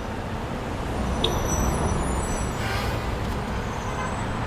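Busy city street traffic: a steady rumble of passing road vehicles, with faint high squeals and a brief click about a second in.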